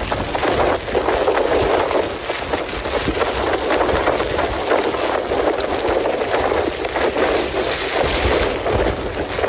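Gale-force wind gusts and heavy rain battering a Cloud Peak 2 tent's flysheet, a dense rushing patter that swells and eases with the gusts.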